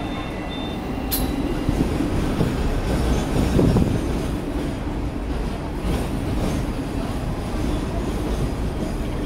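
Hong Kong double-decker tram running along its tracks, heard from on board: a steady low rumble of wheels on rail, with one sharp click about a second in.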